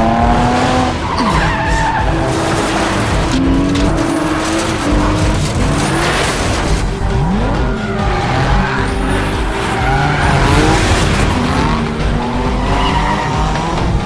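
Racing cars in a film sound mix: engines revving up and down in pitch and tyres squealing as the cars are pushed hard through corners.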